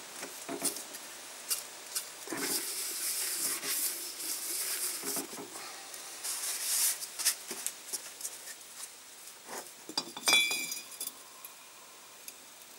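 Metal clinks, knocks and rubbing as a Panhard flat-twin piston is lubricated and worked by hand into its cylinder, with two stretches of hiss early on. The piston goes in stiffly because it is too big for the bore. Near the end comes a loud cluster of knocks with a brief metallic ring.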